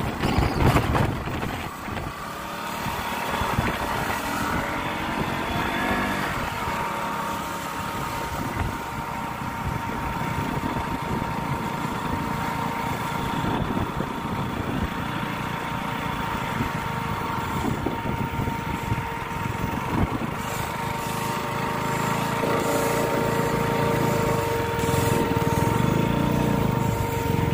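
Motorcycle riding uphill at a steady pace: engine running evenly under wind and road noise, with a steady high-pitched whine. Wind gusts hit the microphone in the first second.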